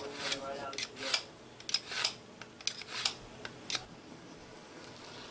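Kitchen knife slicing through a raw beef roast and knocking and scraping on the cutting board: a string of short, sharp strokes, about two a second, for the first four seconds.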